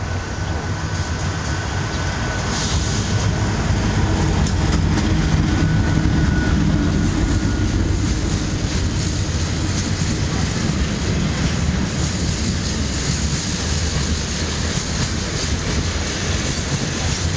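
A diesel-hauled freight train passing: the diesel locomotive's engine drone builds to its loudest about five seconds in. A long string of tank wagons then rolls by, their wheels clicking over the rail joints.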